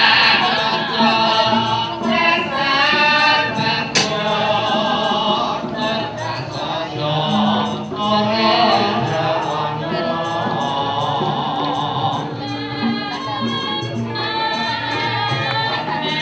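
Javanese gamelan music with singing voices carrying a wavering, ornamented melody over steady struck-metal tones, and a single sharp knock about four seconds in.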